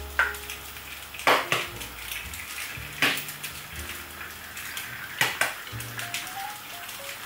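Egg frying in a non-stick pan on a gas hob with a light sizzle, and a handful of sharp knocks and taps from the pan and an eggshell being cracked, over soft background music.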